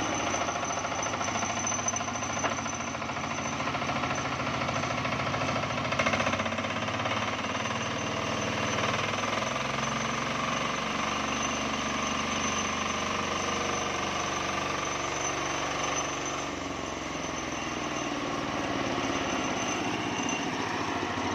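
Homemade sawmill driven by a Matsumoto single-cylinder diesel engine, running steadily with a knocking diesel beat under the saw's noise. The sound dips slightly and changes pitch about 16 seconds in.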